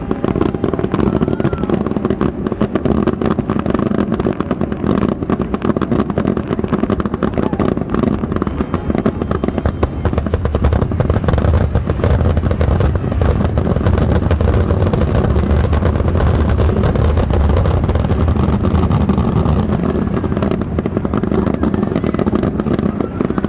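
Aerial fireworks display going off in a rapid, unbroken string of bangs and crackles over a heavy low rumble that builds about halfway through.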